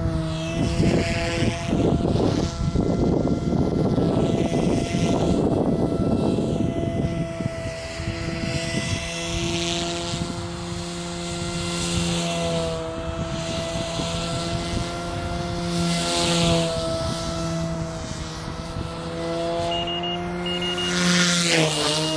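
Electric RC helicopter (SAB Goblin Fireball) in flight: a steady motor-and-rotor whine that shifts slightly in pitch and dips briefly near the end as the rotor is loaded in a manoeuvre. A rushing noise lies over it for the first several seconds.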